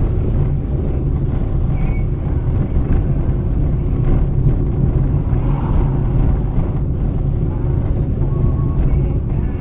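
Car driving, with a steady engine and road-noise rumble and faint music over it.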